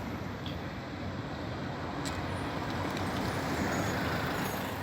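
Steady low rumble of city street traffic, with a few faint ticks over it.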